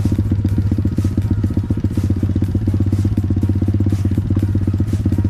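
Small off-road motorcycle engine running steadily at an even speed, a loud, rapid, even pulsing.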